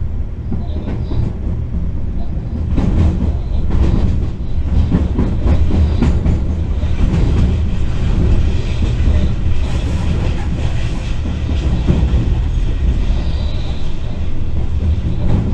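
Electric freight locomotive heard from inside the driver's cab, rolling over switches: a steady low rumble with clicks and clatter of the wheels on the pointwork, growing louder about three seconds in.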